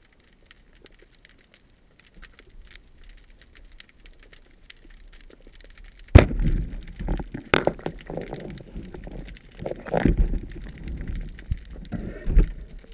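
Underwater sound picked up through a camera housing. The sea gives a faint crackle at first. About six seconds in, a sudden loud knock sets off loud rushing, rumbling water noise as the diver moves, with several more sharp knocks.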